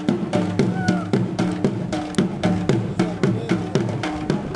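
Dhol drums beating a fast, steady dance rhythm, about four to five strokes a second, with a short high held note over them about a second in.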